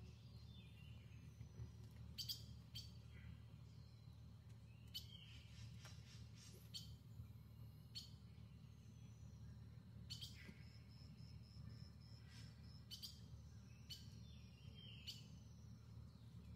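Faint, scattered bird chirps and calls, among them a few short whistles falling in pitch, over a quiet low rumble of open-air background.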